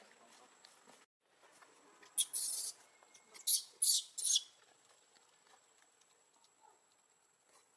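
Newborn macaque screaming in distress as a juvenile monkey pulls at its arm. It gives four shrill squeals: one of about half a second, then three short ones in quick succession.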